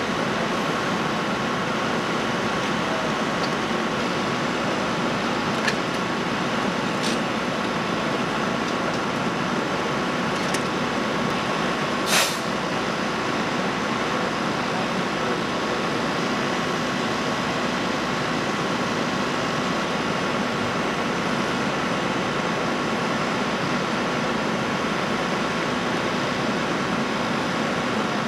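Steady drone of engines running at a vehicle extrication scene, with a few faint clicks and one sharp knock about twelve seconds in.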